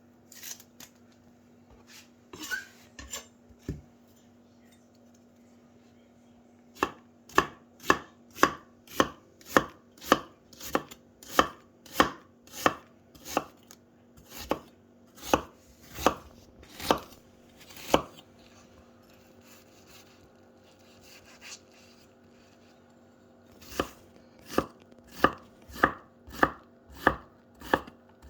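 Kitchen knife chopping half an onion on a cutting board for a fine dice, in steady strokes about two a second. It stops for several seconds and starts again near the end.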